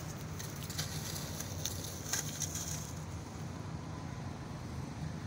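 Dry leaf litter crackling and rustling in a few short bursts as macaques scuffle over a coconut husk, over a steady low rumble.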